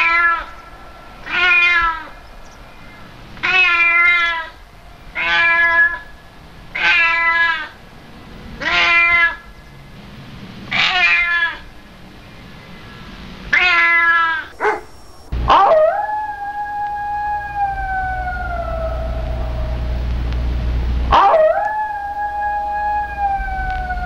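A cat meowing about eight times, one call every second or two, followed by two long howls that each start sharply and slowly fall in pitch over several seconds, with a steady low rumble under the howls.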